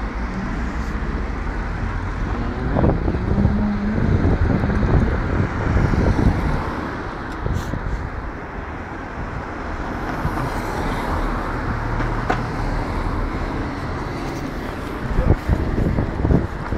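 Car engine running while driving, under steady road noise, its note shifting up and down.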